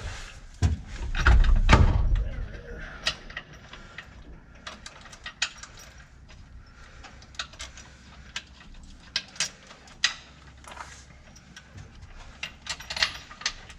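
Hand tools and bolts clicking and clinking, metal on metal, with a heavy low thump about a second in.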